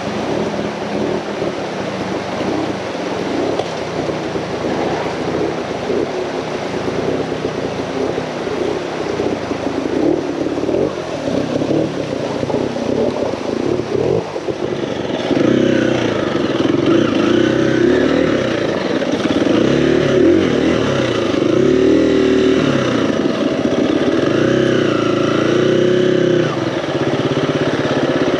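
Trials motorcycle engine running and revving up and down as it is ridden, louder from about halfway through.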